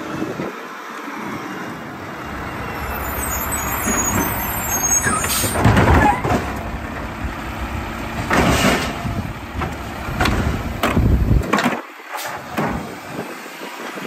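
Mack garbage truck with a Labrie automated side-loader arm: the engine revs up to drive the hydraulics as the arm grabs and lifts a trash cart, with several loud clanks and bangs as the cart is shaken out over the split-body hopper. The engine drops back to idle near the end as the arm lowers the empty cart.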